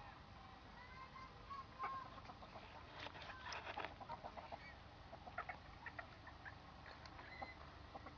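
Chickens clucking faintly, in strings of short clucks around three to four seconds in and again near six seconds, with some thin chirping calls early on.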